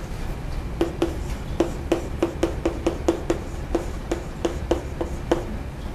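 Chalk writing on a chalkboard: a quick run of sharp taps and knocks, about three a second, as each stroke strikes the board. It starts about a second in and stops near the end.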